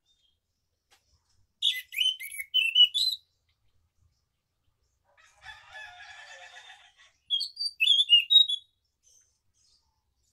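Caged anis macan thrush singing: two bursts of quick, high warbling phrases, about two seconds in and again about seven seconds in. Between them comes a fainter, lower, drawn-out call.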